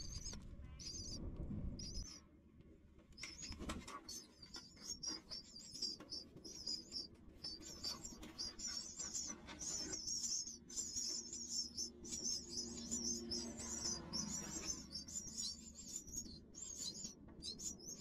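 Nestlings begging for food with rapid, high-pitched cheeps that go on almost without a break after a short pause about two seconds in, thickest in the second half. A low rumble runs under the first two seconds.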